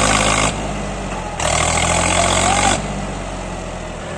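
Farm tractor's diesel engine working under load as it hauls a log-laden trailer over rough ground. It is loud at the start and eases about half a second in, then surges loud again for about a second and a half in the middle as the throttle is opened, before settling back to a steady run.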